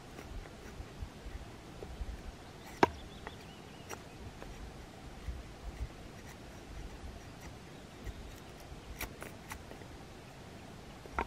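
Small camp axe splitting a thin board of kindling on a chopping block: one sharp crack of wood about three seconds in, then several fainter clicks and knocks as the blade is worked further through the wood.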